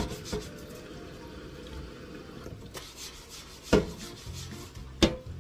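A soapy hand scrubbing a plastic cutting board, a steady rubbing with faint repeated strokes. Two sharp knocks in the last two seconds.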